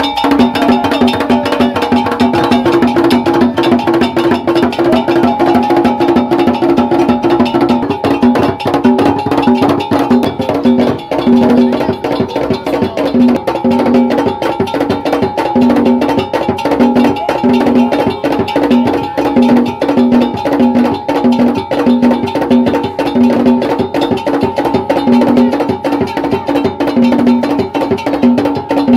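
Ga Kpele ritual drumming and percussion: a fast, dense clatter of strikes over deeper drum strokes that come about once or twice a second, with a steady high ringing tone.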